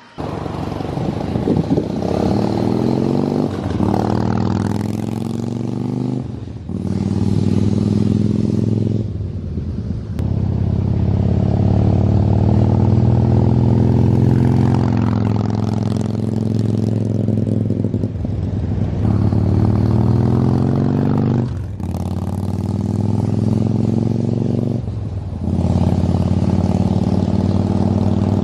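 2013 Harley-Davidson Sportster 1200's air-cooled V-twin running loud through Rush 3-inch slip-on mufflers with 1.75-inch baffles, in long pulls broken by about five brief drops.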